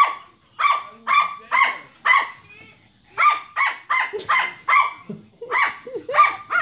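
Small dogs barking rapidly and high-pitched while play-fighting: a run of sharp barks, a pause of about a second near the middle, then another run.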